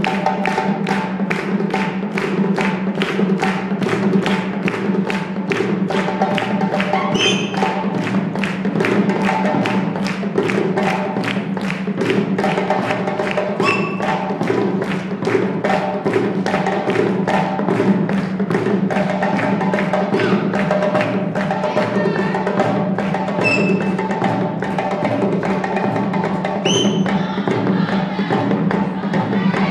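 West African hand drumming: a djembe over dundun drums in a fast, even rhythm. A few brief high-pitched sounds cut through the drumming.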